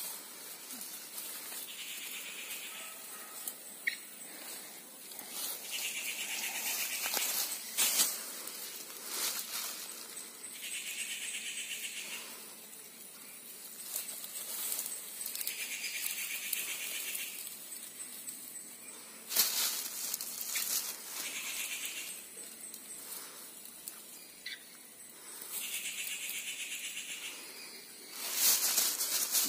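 Rustling and crackling of grass and weeds as hands search through dense undergrowth, loudest in a few sharp bursts. A short high animal call, about a second long, comes back every few seconds.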